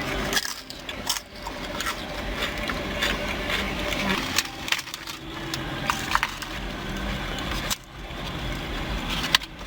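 Close-up chewing of crunchy popCorners chips: repeated dry crunches and crackles over a steady low hum.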